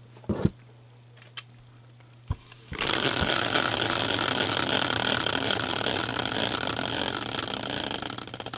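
A few knocks, then a hand-spun caster wheel on a steel bracket whirring and rattling on its axle for about six seconds, breaking into slower ticks near the end as it coasts down.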